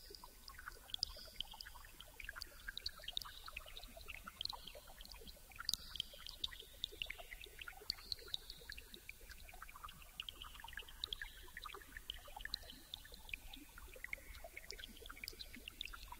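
Quiet, irregular crackling clicks over faint high gliding tones and a low hum: the textural opening of an ambient electronic track.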